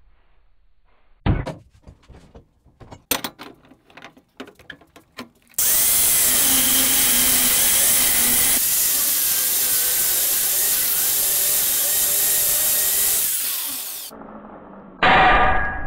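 Angle grinder cutting the hardened steel race of a large ball bearing clamped in a vise, with about eight seconds of steady cutting noise whose pitch wavers with the load, then spinning down. Before it come a sharp knock and a run of clicks and clanks, and a short loud noise begins near the end.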